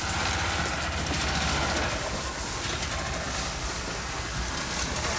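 Small utility vehicle's engine running as it drives away, its low hum fading about two seconds in.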